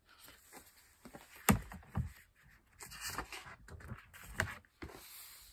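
Handling of a picture book while its page is turned: paper rustling and several knocks, the sharpest about one and a half seconds in, others near two and four and a half seconds.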